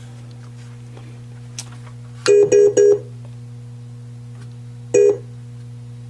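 Williams White Water pinball machine, switched on, giving a steady electrical hum. Over it come three quick identical electronic tones about two seconds in and one more near five seconds: game sound effects set off when playfield switches are touched.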